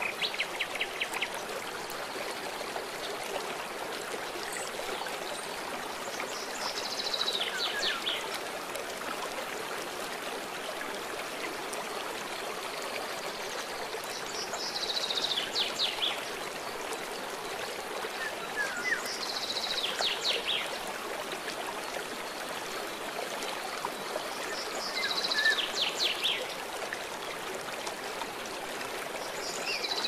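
Shallow river rushing and rippling steadily over stones and gravel. A songbird repeats a short descending trill about every six seconds.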